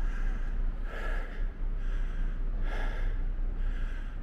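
A man breathing hard and fast, about one breath a second, out of breath from climbing a long flight of stairs.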